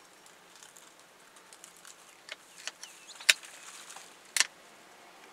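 Sharp cracks of branches snapping as an African elephant bull breaks at a tree: four short snaps in the second half, the loudest about three seconds in. A faint bird chirp among them.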